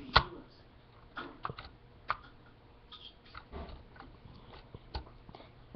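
Scattered small plastic clicks and knocks as the LEGO model is handled close to the webcam microphone. The first click, a quarter-second in, is the loudest.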